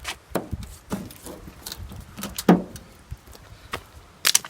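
Scattered knocks and clicks at irregular intervals from footsteps and handling as the removed window is carried off, with the loudest knock about two and a half seconds in and a quick double click near the end.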